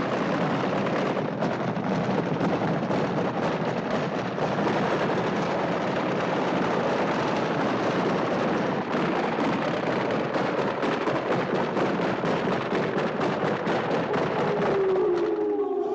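Battle-sound recording played as the Zulu battle cry example: a dense, steady din full of rapid crackles, like heavy gunfire.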